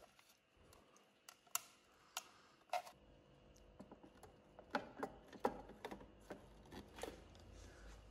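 Sharp clicks and taps of small plastic and metal model parts being handled and fitted together: a few in the first three seconds, then a quick cluster around five to seven seconds in.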